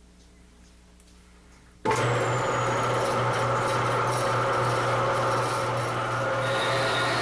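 A King metal-cutting bandsaw switched on about two seconds in, then running steadily with an even motor hum and blade noise. Near the end a thin high tone joins in.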